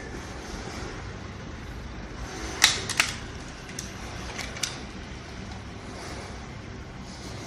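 Sharp plastic clicks and knocks from a trail camera's hinged plastic housing being handled: two loud ones about two and a half and three seconds in, then a few lighter ones, over a steady low hum.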